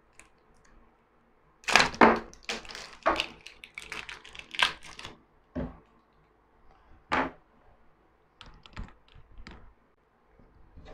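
AA batteries clicking and clattering as they are handled and fitted into the magnifier lamp's battery holder: a quick run of small clicks and knocks, then a few single clicks.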